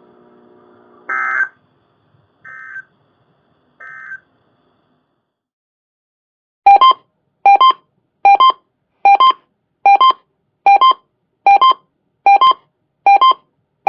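Emergency Alert System broadcast tones: three short digital data bursts in the first few seconds, typical of the end-of-message code that closes an alert. After a pause comes a series of about ten short, evenly spaced electronic beeps, a little under a second apart.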